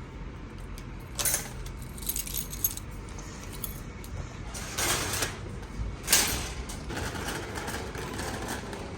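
Several short clinking, rattling handling noises of small hard objects, a second or two apart, the loudest about six seconds in, over a steady low hum.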